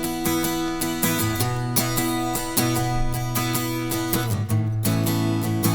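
Instrumental break of a live pop-rock song: acoustic guitar strummed in a steady rhythm, the chord changing about a second in and again near the end.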